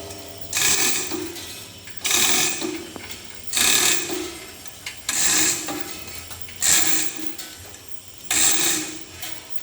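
A machine working in a steady cycle. It makes six short rasping, ratchet-like strokes, one about every one and a half seconds.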